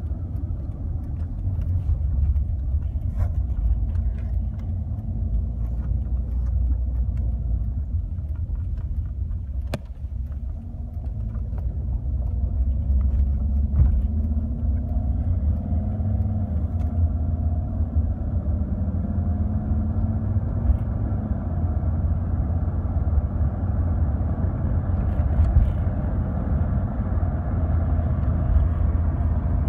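Car driving on the road, heard from inside the moving car: a steady low rumble of engine and tyres, with the engine note rising and falling around the middle. A few light clicks.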